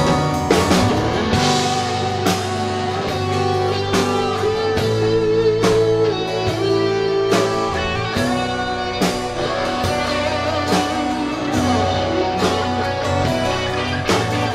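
A live rock band playing: electric and acoustic guitars, bass guitar and a drum kit, with drum hits at a regular beat.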